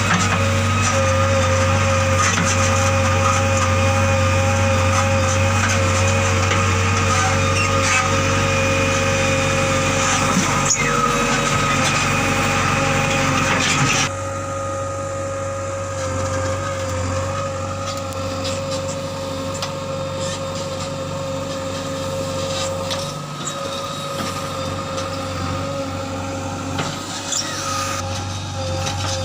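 Backhoe loader's diesel engine running steadily with a constant hum, dropping suddenly to a lower level about halfway through.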